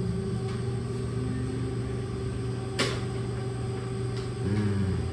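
Steady low mechanical hum of indoor room noise, with one sharp click a little under three seconds in and a brief low sound near the end.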